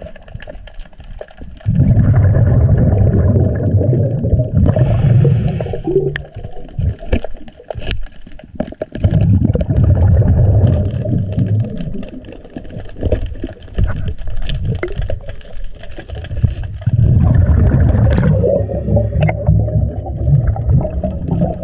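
Scuba diver's exhaled bubbles from the regulator heard underwater, bubbling loudly in three long bursts several seconds apart, with quieter water noise and scattered clicks in between.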